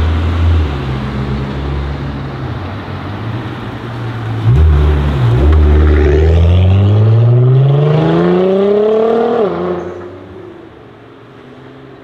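Nissan GT-R R35's twin-turbo V6 running at low revs, then blipped hard about four and a half seconds in and accelerating with a steadily rising engine note. The note cuts off suddenly near ten seconds and fades away.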